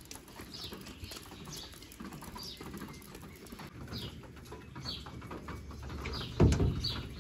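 A bird repeating a short, high, downward-sliding chirp about once a second. A loud low thump comes about six and a half seconds in.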